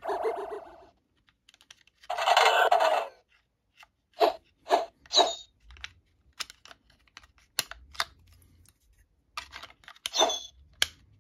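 Hasbro Power Rangers Dino Fury Morpher toy being probed at its key pins: two short electronic sound effects play from its speaker, one right at the start and a louder one about two seconds in, followed by a run of sharp plastic clicks and taps as the pins are pressed.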